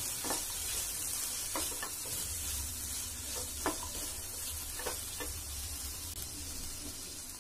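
Chopped vegetables sizzling steadily in oil in a pan while a wooden spatula stirs them, with several short taps and scrapes of the spatula against the pan.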